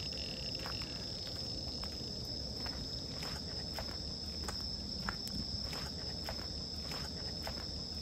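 Footsteps crunching irregularly on a leafy dirt path, over a steady high insect trill.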